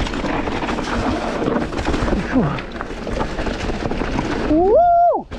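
Wind buffeting the microphone and rumble from a mountain bike rolling over a rough trail, a steady noise throughout. Near the end comes a loud pitched call that rises, holds for about half a second and drops away.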